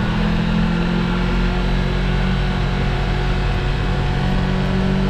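An engine running steadily, a constant low drone with no change in speed.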